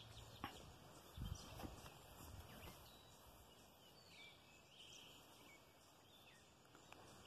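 Near silence: quiet outdoor ambience with a few faint soft knocks in the first couple of seconds.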